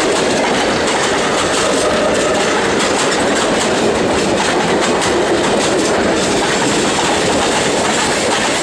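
Passenger cars and a caboose of an excursion train rolling past close by at speed, their wheels clattering over the rail joints in a loud, steady rush.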